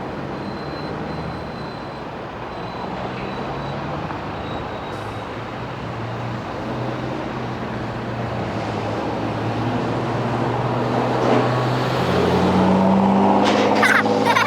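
Motor vehicle road noise: an engine's low hum and tyre rush running steadily, growing gradually louder, with the engine hum strengthening near the end.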